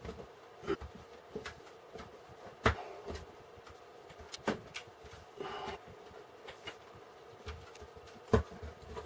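Plastic building bricks clicking and knocking as pieces are handled and pressed together, a scattering of short sharp clicks with the loudest about three seconds in and near the end, and a brief rustle halfway through. A faint steady hum sits underneath.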